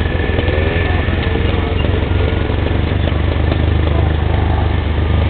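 ATV engines running, a steady low drone that wavers slightly in pitch.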